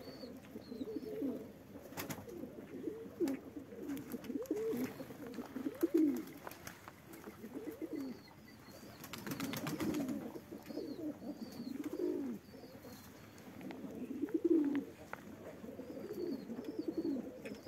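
Domestic pigeons cooing over and over, the low rolling coos overlapping, with a few sharp taps and faint high chirps in the background.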